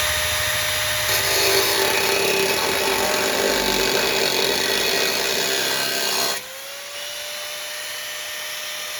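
Power cutting tool cutting a recess in the gate for the electric lock's box: loud, grinding cut under load with a steady motor whine for about six seconds, then the tool eases off and runs lighter, its whine rising slowly.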